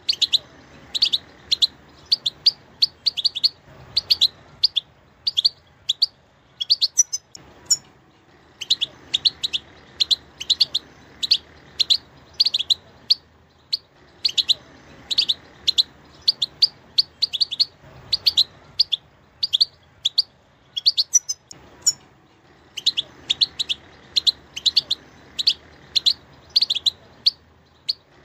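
European goldfinch singing: fast runs of short, high twittering notes in phrases several seconds long, broken by brief pauses.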